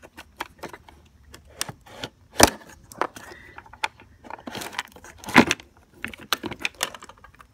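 Scattered clicks and knocks of a small Yuasa motorcycle battery being lifted and pulled out of a Honda Lead 90 scooter's battery compartment, hard plastic knocking against the compartment, with two louder knocks about a third and two-thirds of the way through.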